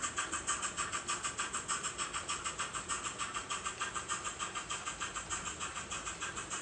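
Sound-decoder steam exhaust of an HO-scale NSWGR 38 class locomotive model, played through its onboard Loksound 5 speaker: a steady, even chuff at about five beats a second as the train runs along.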